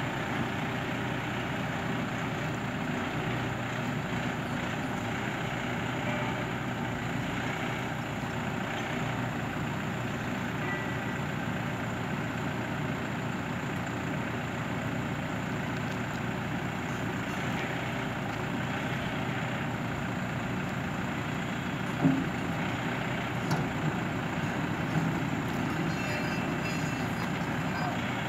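Merlo Roto rotating telehandler running steadily under hydraulic load as its telescopic boom extends, the diesel engine and hydraulics making a constant drone. A single short knock comes about 22 seconds in, followed by a couple of lighter ones.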